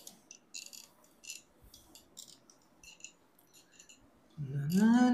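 Cloth wiping a whiteboard in short repeated swishes, about two to three a second. Near the end a man starts singing, louder than the wiping.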